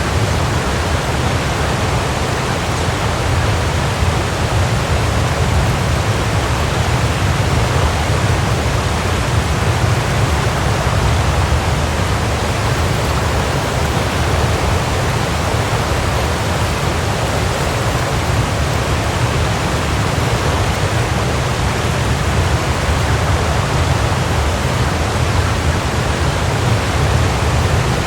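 Waterfall: water pouring and crashing steadily, a dense unbroken rush with a heavy low rumble.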